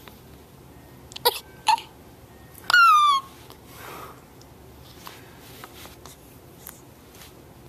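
Hiccups: two short, sharp ones a little over a second in, then a louder, longer squeaky one whose pitch falls, about three seconds in.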